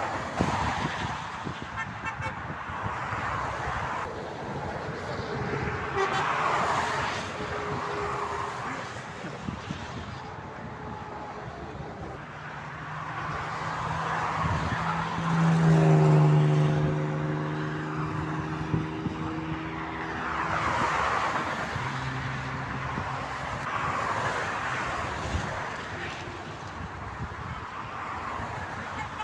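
Motorway traffic passing one vehicle after another, with a low vehicle horn held for several seconds in the middle and a shorter low honk a few seconds later.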